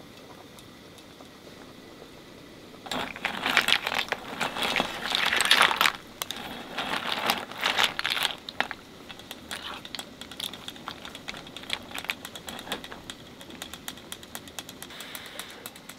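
Clam soup simmering in a stainless pot, the broth bubbling with small pops. From about three seconds in, clam shells clink against each other and the pot as a wooden spoon stirs them, loudest over the next several seconds, then a quicker patter of fine ticks.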